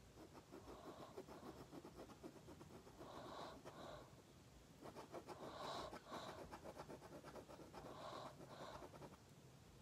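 Faint scratching of a pen on paper in many quick short strokes as a drawing is shaded. Soft paired breaths close by come every two to three seconds.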